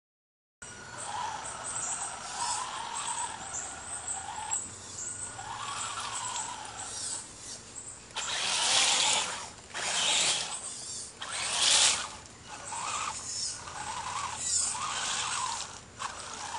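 RC monster truck's brushed electric motor whining up and down in pitch as the throttle is worked, with louder rushing surges of the tyres churning through wet mud about halfway through.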